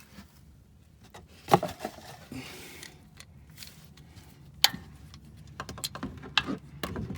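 Metal clinks and taps as the oil drain plug is refitted into the oil pan of a Ford 7.3-litre gas engine, with two sharper knocks and a run of quicker clicks near the end.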